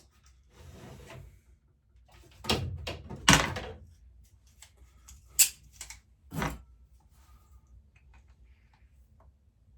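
Tools and metal parts knocking and clunking on the workbench, four distinct knocks in the first seven seconds, while working at a seized carburettor bolt on a mower engine; only faint clicks follow.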